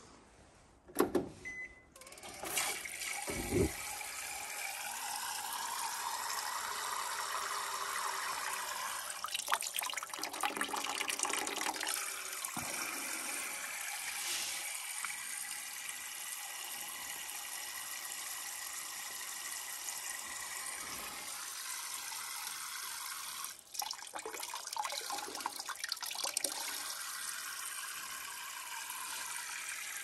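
Water pouring from the spout of a small Rinnai tankless water heater into a plastic bucket, a steady splashing rush. A few clicks and a low thump come in the first few seconds as the flow starts.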